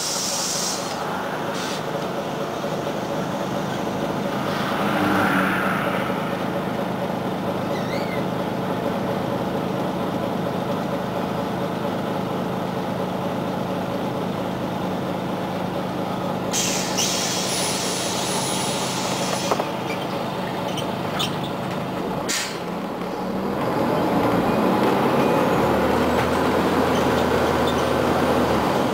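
Scania CN94UA OmniCity articulated city bus heard from inside while driving: steady diesel engine and road noise, with a few short air hisses about two-thirds of the way through. Near the end the engine note changes and gets louder as the bus pulls harder.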